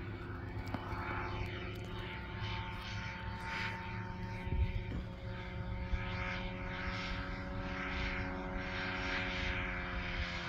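Phantom ultralight's engine and propeller droning steadily in flight, the pitch sagging slightly near the end. A brief low thump about halfway through.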